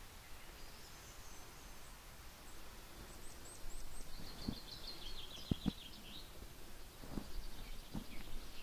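Wild songbirds calling, with a quick run of repeated notes around the middle. Several dull footsteps on stone are heard in the second half.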